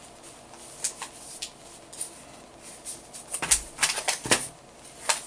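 Letter-size paper crinkling and rustling as the flaps of a folded paper glider are creased and the plane is handled. A few separate crackles come early, then a busier run of crackles about three and a half to four and a half seconds in.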